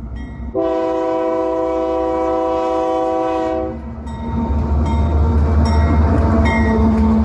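A train horn sounds one long steady blast lasting about three seconds over a low rumble. Then a high-speed bullet train rushes past with a loud rumble that swells, with some rattling clicks.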